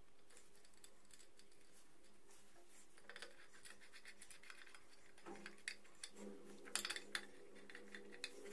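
Light metal clicks and scrapes of a screwdriver working against the bearings in a Suzuki GS150's aluminium crankcase half, with a brief cluster of sharper clicks about two-thirds of the way through.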